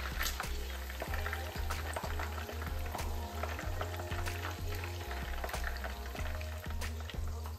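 Battered chicken pieces deep-frying in hot vegetable oil in a frying pan, sizzling and crackling continuously, with occasional clicks of a slotted spatula against the pan as pieces are lifted out. A low hum runs underneath.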